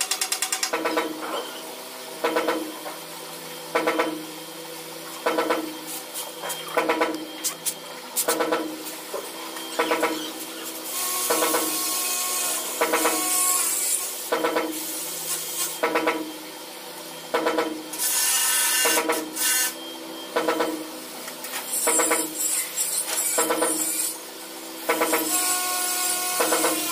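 Power drill run overhead in several bursts of one to three seconds, over a regular pulsing sound that repeats about every second and a half.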